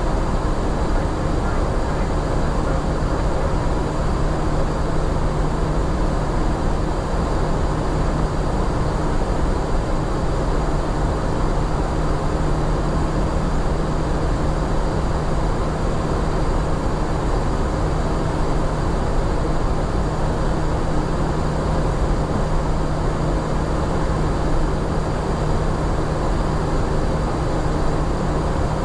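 Steady flight-deck noise in an Airbus A350-900 cockpit: an even rushing of air with a low steady hum and faint steady tones, unchanging throughout.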